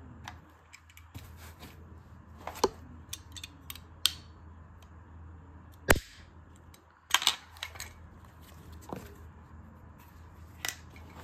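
Metal toy guns, a pistol and then a small revolver, being handled: sharp clicks of hammers and triggers being cocked and snapped, the loudest about six seconds in and a quick cluster just after, with softer knocks of handling.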